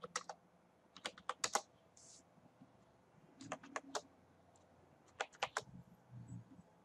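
Computer keyboard typing: a few short runs of keystrokes with pauses between them.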